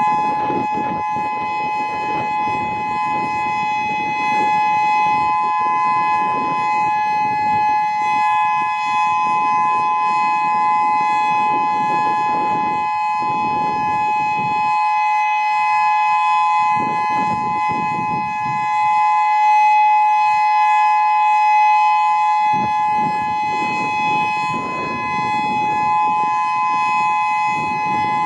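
Whelen WS-2000 electronic outdoor warning siren sounding a steady, unwavering two-pitch tone during a scheduled siren test. A lower rushing noise swells and fades beneath it several times.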